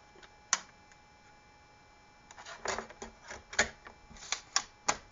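An installation DVD being handled and loaded into a laptop's disc drive: one sharp click about half a second in, then a run of light plastic clicks and rustling over the last three seconds.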